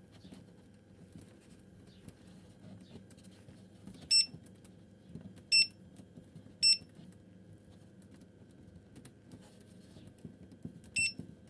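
Short electronic beeps from the Teplushka 72 incubator's control unit as its buttons are pressed to set the temperature: four single beeps, a second or more apart. Under them runs the faint steady hum of the incubator's fan.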